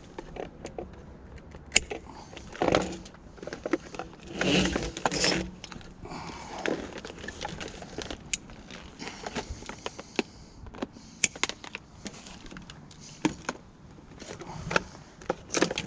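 Scrap wire and a bike wheel being handled by hand: irregular clicks, knocks and light metal clatter, with louder rustling about three and five seconds in.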